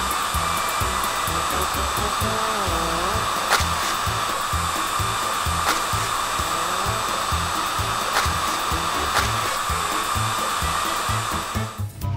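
Cartoon sound effect of a spinning car-wash brush: a steady motor whirr that cuts off just before the end, over background music with a steady bass beat.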